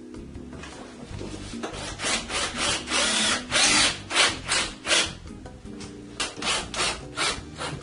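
Cordless drill driving screws into a sheetrock panel, in short repeated bursts, a few a second, from about two seconds in, with a brief pause before the last run of bursts. Background music plays underneath.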